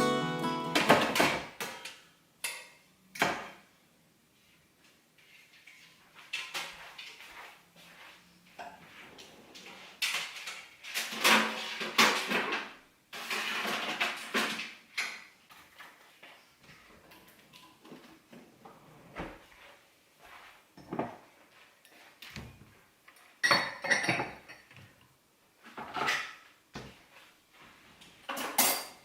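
Dishes and cutlery being handled: irregular clinks and clatters of crockery and metal utensils, with short quiet gaps between.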